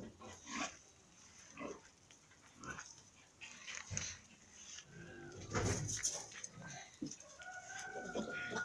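Frightened piglet grunting and squealing in short, sudden calls spaced about a second apart, louder around the middle, with a longer held call near the end.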